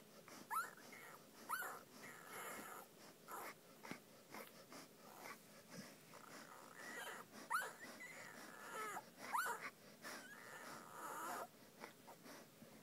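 Puppies whimpering and squeaking: several short, high squeaks that rise in pitch, scattered among softer whining.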